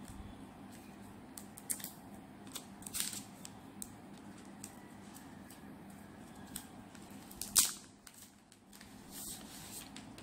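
Small clicks, taps and rustles of a smartphone and its small packaging being handled and opened, with a louder click about seven and a half seconds in. A faint steady hum runs underneath.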